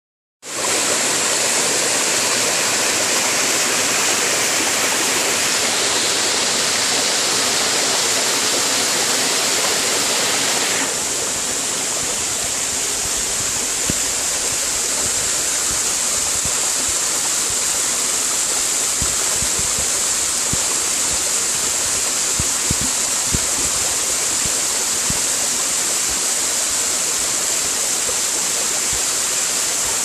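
Small waterfall pouring over a rock ledge into a stream: a steady, loud rush of falling water, growing a little quieter and duller about a third of the way in.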